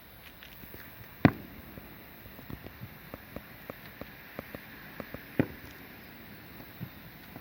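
Fireworks going off: two loud bangs about four seconds apart, with a run of smaller crackling pops between them.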